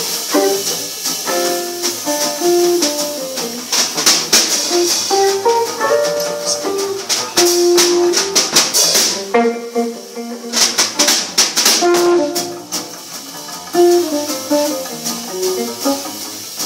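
Jazz trio of archtop guitar, double bass and drums playing at a fast tempo. Quick runs of single guitar notes ride over the bass, with cymbals and sharp drum hits throughout.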